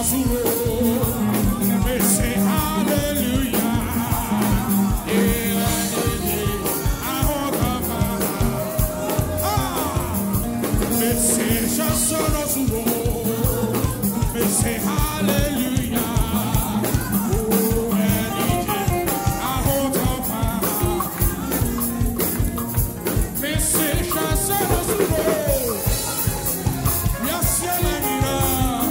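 Live gospel band playing an up-tempo Ghanaian praise groove: electric guitar, keyboards, bass guitar and drum kit over a fast, steady beat.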